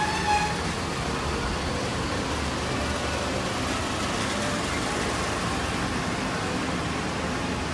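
Steady rushing whir of electric fans and an air cooler running in a room, with no clear changes.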